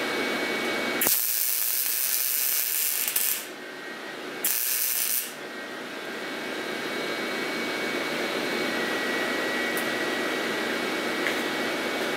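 MIG welder tack-welding two steel scooter frames together: two bursts of high hiss, the first about two seconds long starting a second in, the second shorter and under a second, over a steady background hum.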